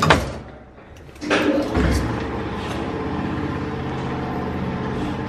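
The collapsible iron scissor gate of an old cage lift clatters shut. About a second later the lift starts off with a thump and then runs with a steady hum as the car travels up the shaft.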